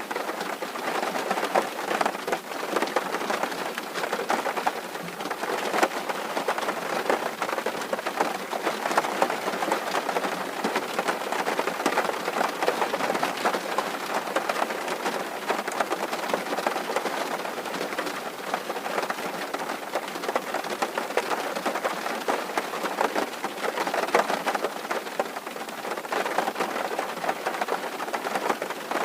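Steady rain drumming on a tin roof: a dense, even patter of countless small drop impacts on sheet metal.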